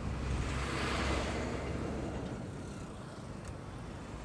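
Boda boda motorcycle engine running under way in street traffic, with road noise. A rush of noise swells and fades about a second in.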